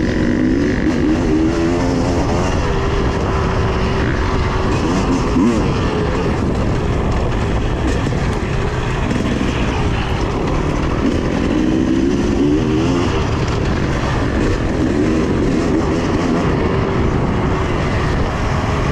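Husqvarna TE300i two-stroke enduro motorcycle being ridden on a dirt trail. The engine revs rise and fall repeatedly with the throttle, over a steady rush of wind and ride noise.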